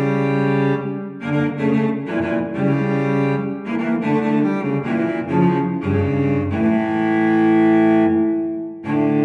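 Background music: a slow, sad classical solo cello piece playing bowed notes, with a long held note followed by a brief dip and a new note near the end.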